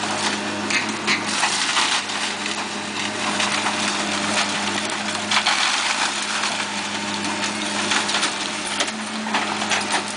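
Hydraulic excavator demolishing a brick building: rubble crashing and cracking again and again as the building is torn apart, over the steady hum of the excavator's diesel engine.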